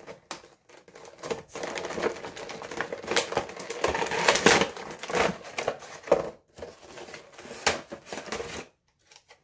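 Stiff clear plastic blister tray of an action figure package crackling and crinkling as it is worked out of its cardboard window box and handled. The crackles come irregularly, loudest around the middle, and drop off briefly near the end.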